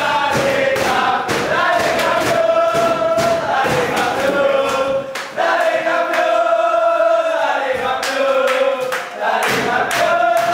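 A group of men chanting a sports celebration song in unison, with rhythmic hand-clapping keeping time; about halfway through they hold one long note.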